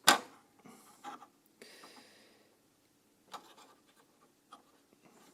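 A sharp plastic clack right at the start, then faint scraping and a few light clicks: hands working loose plastic parts and the ink hose of an inkjet printer's waste ink unit.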